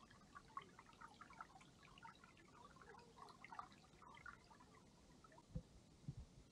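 Faint trickle and drip of shallow creek water running between rocks, a patter of small splashes that thins out after about four seconds. A few short low thumps follow near the end.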